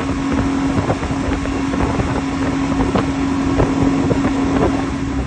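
A motorboat's outboard engine running at a steady drone, with water and wind noise buffeting the microphone; the sound cuts off abruptly at the end.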